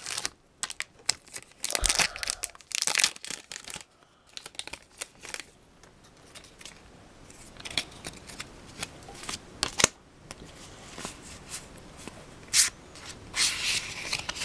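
Foil wrapper of a Pokémon trading card booster pack being torn open and crinkled, then the cards being handled and slid against one another. Loud rustling comes in the first few seconds and again near the end, with quieter scattered clicks between.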